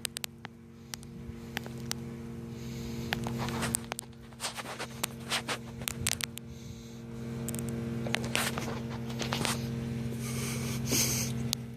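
Electric drain-cleaning machine running its cable into a root-clogged sewer line: a steady motor hum with the cable clattering and scraping in irregular clicks as the cutter works through the roots.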